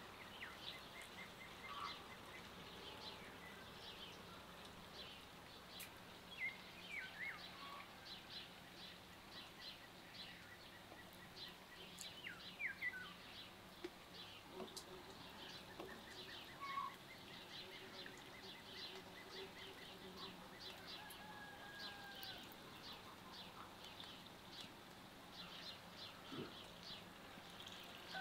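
Faint outdoor ambience of birds: many quick, scattered chirps throughout, a few sliding calls, and a longer held call in the second half.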